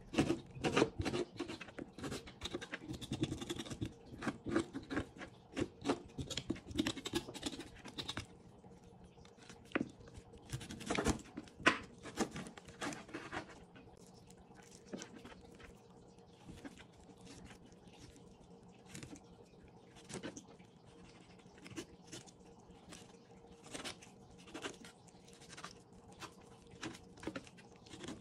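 A knife cutting and scraping raw chicken drumstick meat off the bone against a cutting board, with the sticky sounds of the meat being pulled and handled. A quick run of short cuts and scrapes for about the first eight seconds, then sparser, with a few louder strokes a little past the middle.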